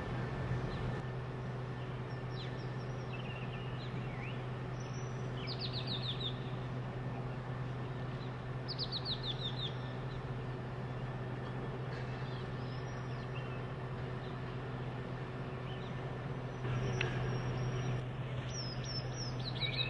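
Birds chirping, with two runs of quick descending notes about five and nine seconds in and more calls near the end, over a steady low hum.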